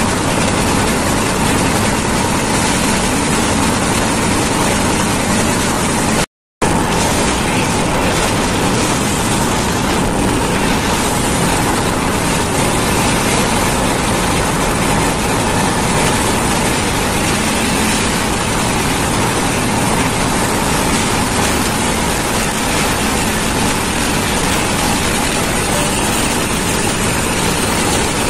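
Steady running noise of a moving passenger train heard from its open doorway: a constant rumble of wheels on rail mixed with rushing air. The sound cuts out completely for a split second about six seconds in.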